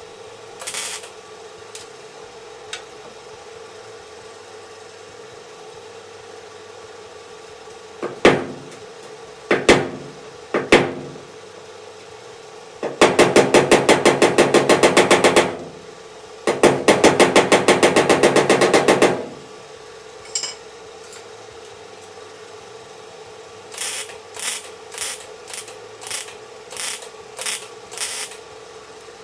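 Metal bodywork on a truck's sheet-metal wheel arch: a few single ringing hammer blows, then two bursts of rapid, even hammering each a couple of seconds long, and near the end a run of about eight lighter taps.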